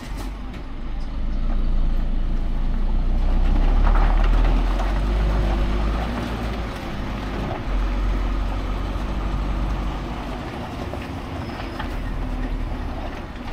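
Timber truck's diesel engine running with a deep, steady rumble that swells over the first few seconds and then eases back.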